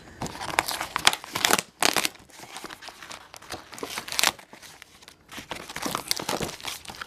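Layers of packing tape being peeled and ripped off a cardboard doll box, in uneven tearing pulls with the loudest rips about a second, two seconds and four seconds in.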